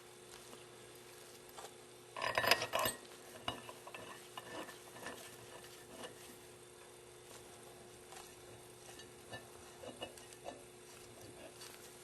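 Small metal parts clinking and rattling as hex bolts with tooth washers and a thin metal tool are handled on a hydraulic pump housing, with a short burst of clatter about two seconds in and scattered light ticks after.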